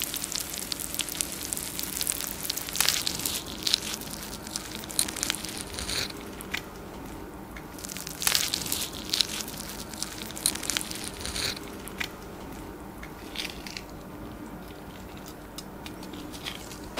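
Melted face of a half wheel of raclette cheese bubbling and crackling: an irregular run of small pops and ticks, with a few sharper pops now and then.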